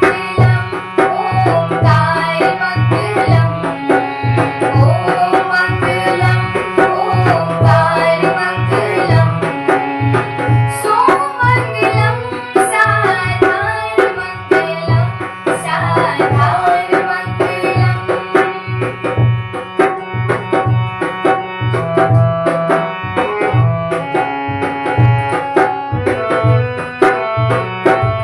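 Instrumental opening of a Hindu devotional bhajan. A steady hand-drum rhythm carries a bending melody.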